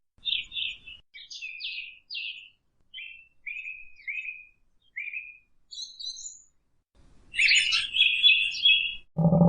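A small bird chirping: a series of short, high, downward-sliding chirps, roughly two a second with short gaps, then a busier, louder stretch of chirping in the last two seconds.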